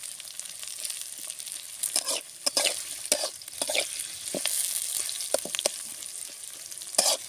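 Sliced onions sizzling in hot oil in a metal pot, being fried toward light brown. A metal spatula stirs them, scraping and clicking against the pot at irregular moments.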